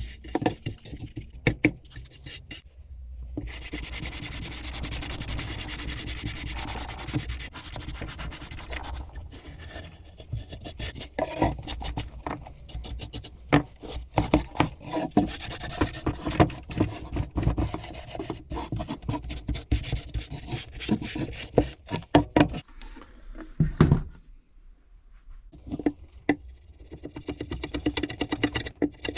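Rubbing and scraping strokes on a small wooden book rest as its dirty, paint-stained surface is worked back, in irregular strokes with a short pause near the end.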